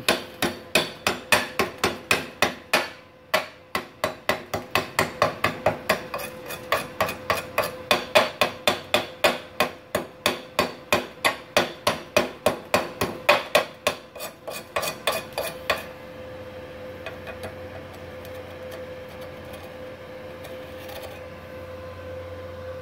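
Chipping hammer knocking slag off fresh stick-weld beads on steel plate: quick sharp taps, about three or four a second, with a short pause about three seconds in, stopping about sixteen seconds in. A steady hum with a faint tone is left after the taps stop.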